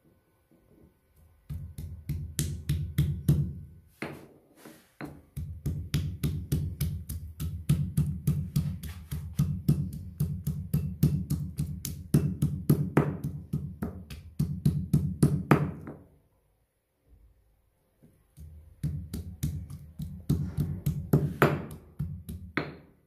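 Stone pestle pounding garlic cloves in a marble mortar: quick, steady knocks, several a second, in three runs with short pauses between.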